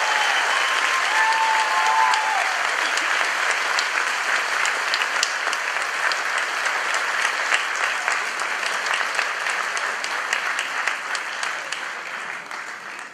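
Audience clapping in a theatre hall. The applause is dense at first and slowly fades toward the end.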